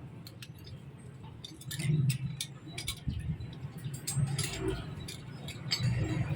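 Irregular sharp clicks and light metallic clinks over a low steady hum.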